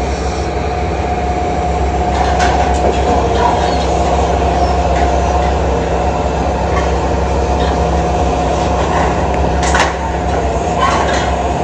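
Hitachi Zaxis 225USR excavator's diesel engine running steadily with a constant whine over it, while its steel-cutter shear works the steel frame. Two sharp metallic clanks stand out, about two seconds in and a louder one near the end.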